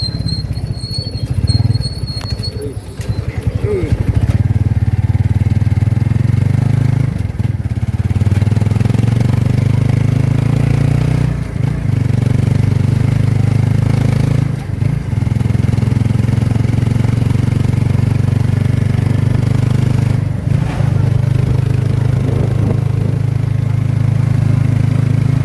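A Philippine tricycle's motorcycle engine runs steadily under load as it carries a passenger and a fridge through traffic. The engine note dips briefly about four times. A thin high whine sounds in the first few seconds.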